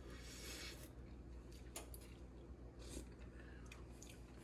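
Quiet room tone: a low steady hum, with a soft hiss in the first second and a few faint clicks.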